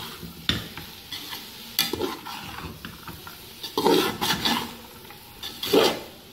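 Metal spoon stirring and scraping chana dal and bitter gourd in a metal pot, in a few irregular strokes, the loudest about four seconds in and near the end, over a faint sizzle of the frying masala.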